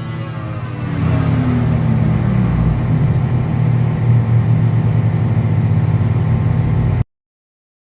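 Yamaha R1 crossplane inline-four running through an Arrow exhaust, its pitch falling over the first few seconds as the revs drop, then running steadily. It cuts off suddenly about seven seconds in.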